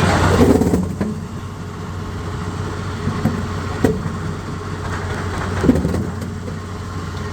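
Jaw rock crusher running with a steady low mechanical hum. It is louder for about the first second, and a few sharp knocks, like rock striking in the jaws, come around the middle.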